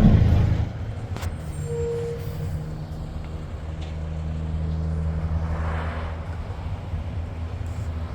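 Diesel engine of a Mack front-loader garbage truck running with a steady low hum, louder in the first moment. A brief whine sounds about two seconds in.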